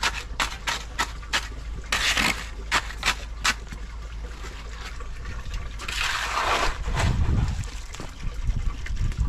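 Shovel working wet concrete into a wooden form: a quick run of short scrapes and knocks, then a longer wet slosh of the concrete about six seconds in.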